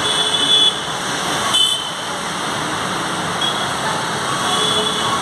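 Steady mechanical din of a running escalator mixed with road traffic noise, with faint high whines coming and going.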